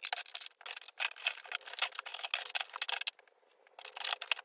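Rapid crackling and clicking of items being handled and rustled while a box is sorted, pausing briefly about three seconds in.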